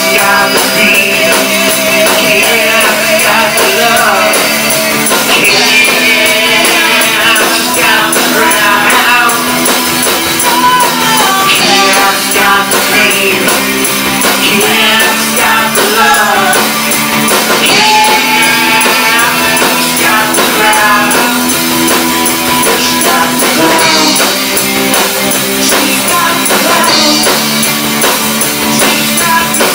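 Live rock band playing an instrumental passage: electric guitars, bass and drum kit, with a harmonica played into the vocal microphone and a tambourine.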